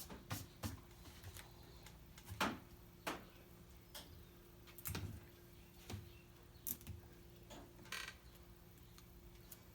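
Scattered small clicks and taps of hands handling heat tape and a sublimation print on a metal saw blade, over a faint steady hum.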